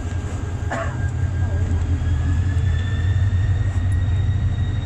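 Passenger train moving along a station platform, heard from inside the carriage: a steady low rumble, with a faint whine that slowly rises in pitch from about two seconds in as the train picks up speed.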